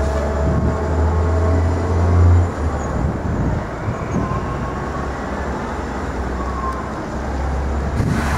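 City street traffic: a heavy vehicle's low engine rumble swells to a peak about two seconds in and fades, over a steady wash of passing-car noise. The rumble builds again near the end.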